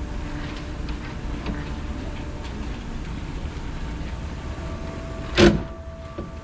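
Steady low machinery hum with faint clicks, and one loud sharp knock about five and a half seconds in.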